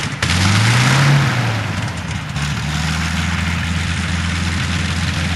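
A WWII fighter's Rolls-Royce V12 piston engine just after start-up. Its pitch swings up and down for the first two seconds or so as it catches, then it settles into a steady idle.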